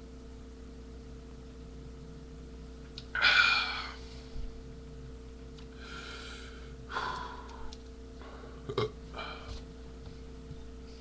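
A man burping: one loud burp about three seconds in, then several shorter, quieter throat sounds.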